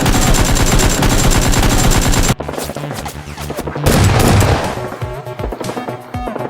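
Rapid machine-gun fire sound effect over background music. The firing stops abruptly about two seconds in, leaving the music with a heavy low hit near the middle.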